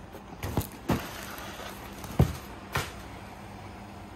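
A few dull knocks and bumps as a large cardboard parcel is handled, over a faint steady hum.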